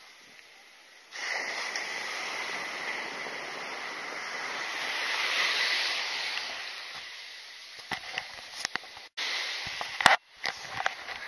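Ocean surf breaking and washing up the beach, a steady rush that swells to its loudest about midway and then eases. Near the end come a few sharp knocks and clicks.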